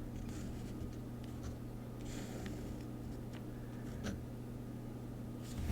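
Faint scratching and rubbing on paper, with a few light ticks and taps. This is the sound of planner pages and a Deco Rush tape applicator being handled.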